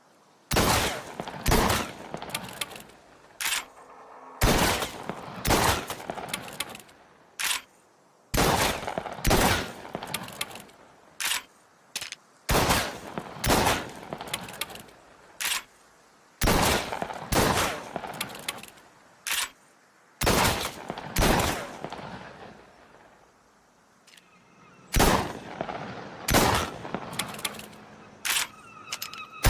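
Sawed-off double-barrelled shotgun (lupara) firing, about two dozen shots: single blasts and quick pairs roughly a second apart, each trailing off in a short echoing decay. There is a pause of a few seconds about three quarters of the way through.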